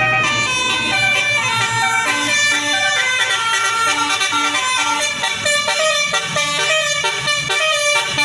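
Basuri telolet multi-tone bus horn playing a melody, its notes stepping up and down several times a second without a break.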